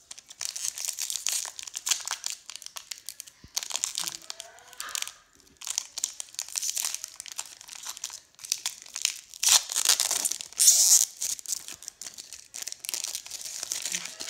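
Pokémon booster pack's foil wrapper crinkling loudly as it is handled and torn open, in repeated bursts of crackling with brief pauses between them.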